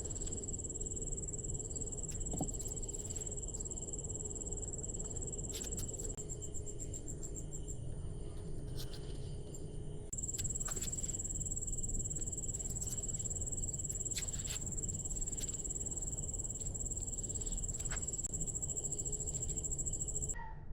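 Insects trilling steadily at a high pitch, stopping for about two seconds partway through and then starting again, with a few faint clicks.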